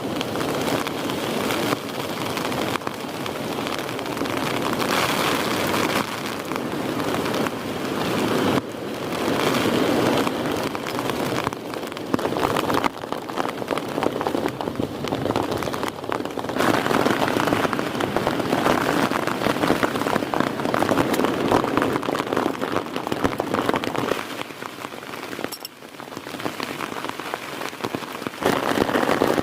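Heavy rain falling, a dense hiss of many drops that swells and eases, with a brief lull about three-quarters of the way through.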